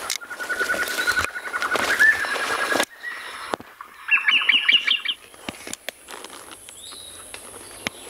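Dusky antbird song: a fast run of repeated notes at one steady pitch for nearly three seconds, then a shorter, higher series of notes that steps upward about four seconds in, with scattered clicks.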